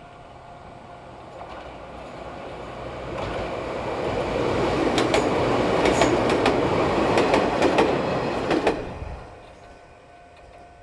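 Izuhakone Railway Daiyuzan Line electric train passing close by: its running noise builds up, peaks with sharp wheel clacks over the rail joints, then drops away quickly about nine seconds in.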